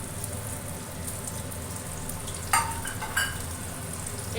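Fish frying in hot oil in a kadai, a steady sizzle with fine crackles. A sharp metallic clink with a short ring about two and a half seconds in, and a smaller one just after three seconds.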